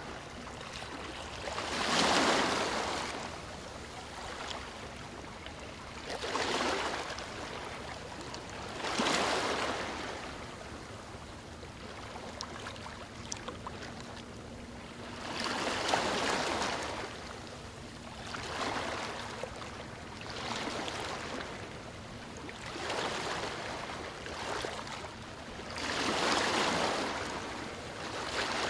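Ocean waves washing in and out, the hiss of surf swelling and fading about eight times.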